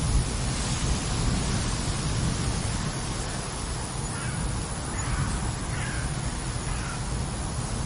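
Wind buffeting the microphone with a steady low rumble. A few faint, short, harsh bird calls come in the middle.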